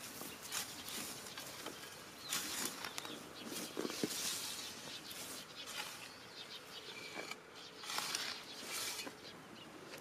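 Faint rustling and scraping of soil and sweet potato vines being dug, in several short bursts.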